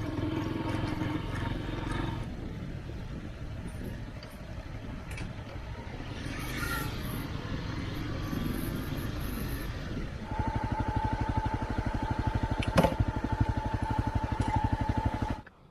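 Motorcycle engine running while the bike is ridden, its firing pulses becoming stronger and more even from about ten seconds in, with a steady whine joining them. There is a single sharp click near the end.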